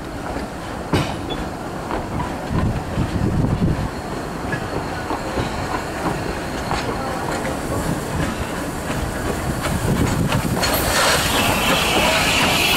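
Narrow-gauge railway coaches rolling past, their wheels clicking over the rail joints with a steady rumble. Near the end a Beyer Peacock 2-4-0 steam tank engine comes by with a loud hiss of steam.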